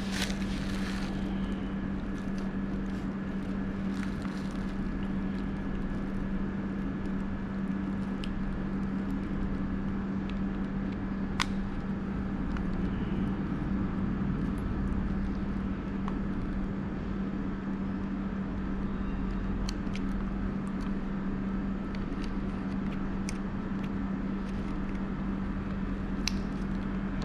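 A steady low hum runs throughout, with a few short sharp clicks scattered through it as the scooter's display wiring connectors are handled and plugged back together.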